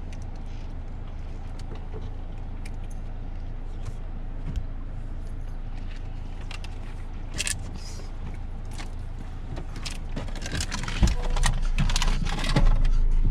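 Steady low rumble of a car heard from inside the cabin, with scattered small clicks and rattles. About ten seconds in, louder rustling, knocks and jangling start up.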